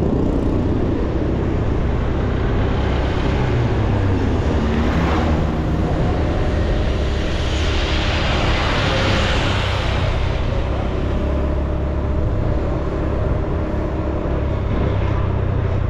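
Motor vehicle on the move along a paved road: a steady engine note with road and wind noise. A hiss swells and fades about halfway through.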